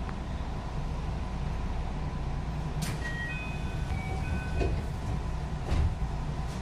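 JR West 221 series electric train running: a steady low rumble of wheels on rail, with a couple of sharp clacks from rail joints and several brief high-pitched squeaks from the wheels around the middle.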